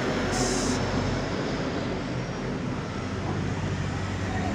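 Steady low engine hum, with a brief high hiss about half a second in.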